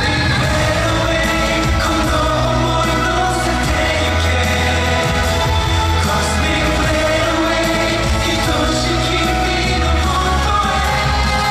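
A male singer singing a pop song live into a handheld microphone over a backing track with a steady, sustained bass line.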